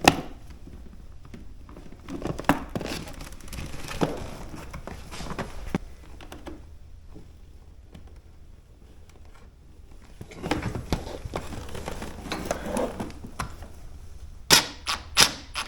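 Hands handling small parts and tools: rustling with scattered light clicks, and a quick run of four sharp clicks near the end.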